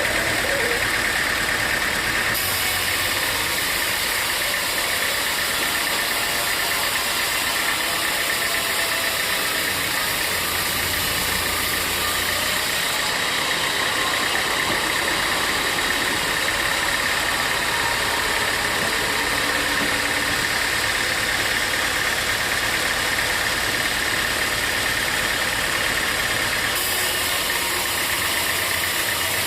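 Sawmill machinery running steadily: an engine-driven saw with a steady high whine over a continuous mechanical noise. The sound changes abruptly a few times.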